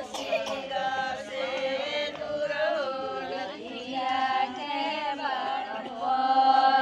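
A group of women singing a Govardhan (Godhan) puja folk song together, unaccompanied, in long held notes that glide between pitches.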